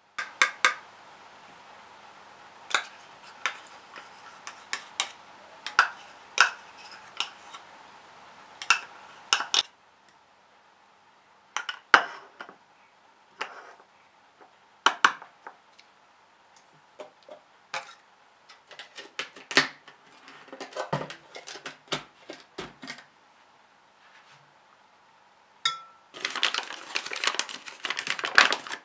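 Metal spoon clinking, tapping and scraping against a plastic measuring cup and a glass mixing bowl while scooping. Near the end, a paper flour bag crinkles and rustles as it is handled and opened.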